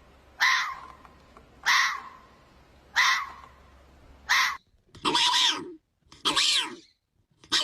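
Animal calls: four short, sharp calls about a second and a quarter apart, then a different run of longer calls with a wavering pitch, three of them about a second apart.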